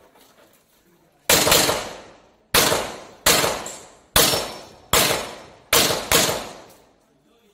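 Pistol shots, about seven, fired at an uneven pace of roughly one a second, each with a long echo off the range's concrete walls.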